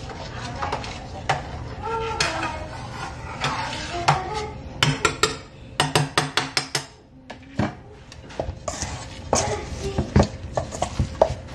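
A metal spoon stirring a pot of salsa on the stove, clinking and scraping against the pot, with a quick run of sharp clinks about five to seven seconds in.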